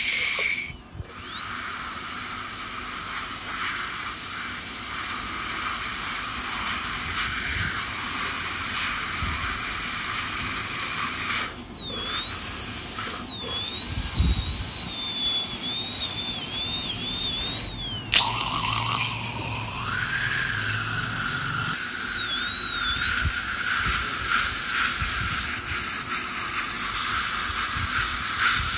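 High-speed dental handpiece whining as its small round bur cuts decay out of an upper front tooth to prepare it for a composite filling. The whine's pitch dips and wavers as the bur bears on the tooth, and it breaks off briefly a few times before starting again.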